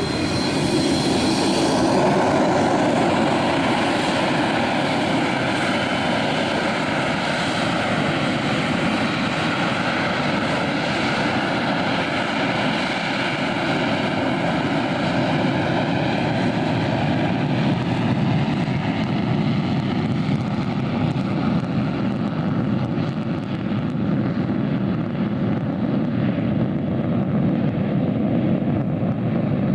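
Boeing 737-200's Pratt & Whitney JT8D jet engines running loud and steady. A high whine is heard in the first couple of seconds; over the second half the upper hiss fades away, leaving a deep rumble.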